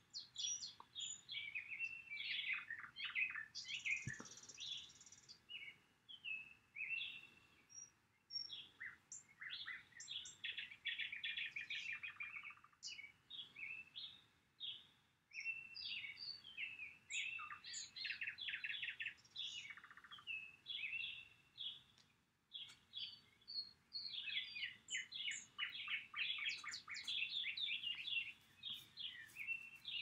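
Songbirds chirping and singing, several overlapping songs with quick calls and rapid trills, with a brief lull a little past the middle.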